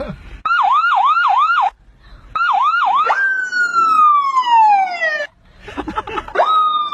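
Siren sounding in short goes: quick falling yelps about three a second that cut off twice, then a sudden rise into a long, slowly falling wail. It stops and starts again with another sharp rise near the end.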